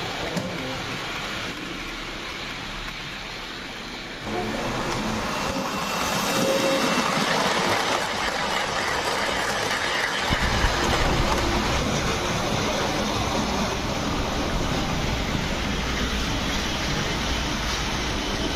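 HO-scale model steam train, a small locomotive with passenger coaches, running along the layout's track with a steady rolling noise. It grows louder a few seconds in, and a low rumble joins about halfway through.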